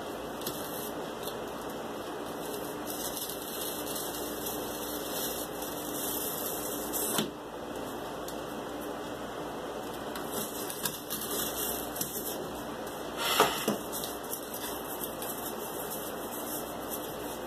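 Cardboard work at a desk: a small hand tool cutting and scraping thin cardboard strips, with light taps, scrapes and rustles of the card. Two sharper knocks stand out, about seven and thirteen seconds in.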